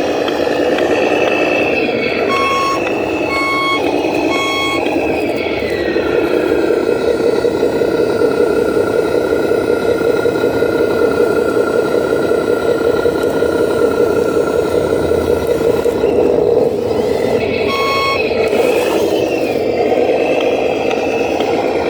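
Radio-controlled model truck's simulated diesel engine sound running steadily, with reversing beeps: three beeps about a second apart a couple of seconds in, and one more near the end. The engine note drops after the first beeps and rises again near the end.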